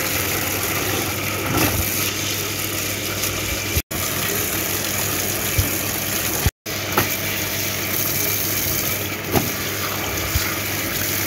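Water pouring from a pipe into a metal tub while heavy wet fleece blankets are squeezed and turned in it, splashing, with a steady low hum underneath. The sound cuts out briefly twice, around the middle.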